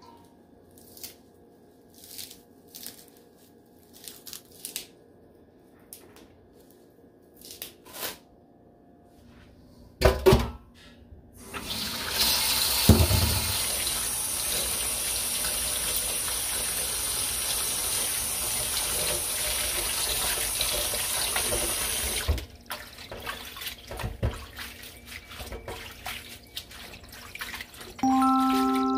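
Kitchen tap running steadily into a stainless steel bowl of watercress in the sink for about ten seconds while hands wash the leaves, after a thump about ten seconds in. Before that, soft snaps and rustles of watercress stems being picked by hand; after the tap shuts off, hands swish and splash the wet leaves.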